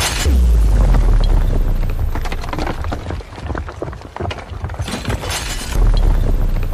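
Sound effects of a laser blasting through a brick wall: a deep rumble with crackling and clattering of breaking, falling debris, a hissing burst at the start and another about five seconds in, and the rumble swelling again near the end.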